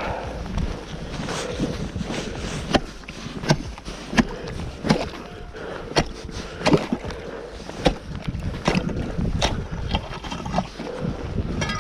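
Regular crunching strikes on snow-covered lake ice, roughly three every two seconds, over a low rumble of wind on the microphone.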